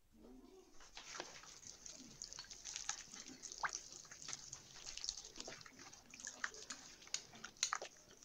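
A bare hand squeezing and mixing an oily paste of ground sesame, ground almonds, butter and oil in a glazed clay bowl: irregular wet squelching and slapping that starts about a second in.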